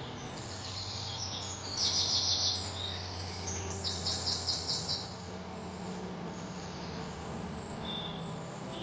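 Bird calls: two fast, rattling trills of rapidly repeated high notes, about 2 and 4 seconds in, over a steady low hum.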